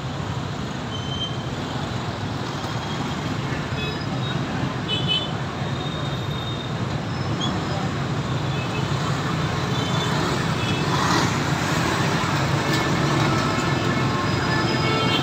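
Dense motorbike and scooter traffic crawling past, a steady hum of many small engines that grows slowly louder, with a few brief horn toots.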